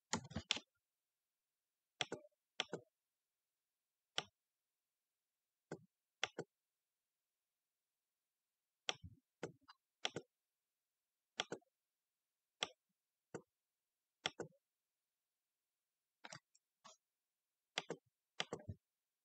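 Faint, irregular small clicks and taps, sometimes in pairs, with complete silence between them.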